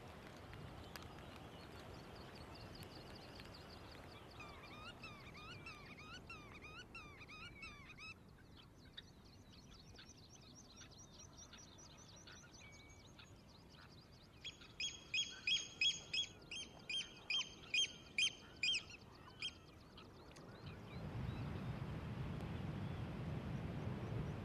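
Birds calling over a faint background wash: a run of quick repeated chirping calls in the first few seconds, then about a dozen loud, clear piping calls in a steady series a little past the middle. A low rumble comes in near the end.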